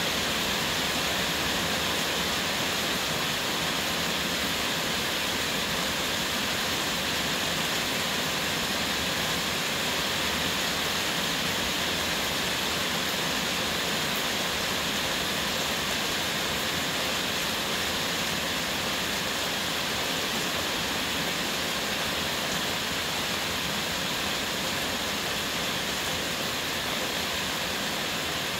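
Heavy rain falling steadily: an even, dense hiss of countless drops.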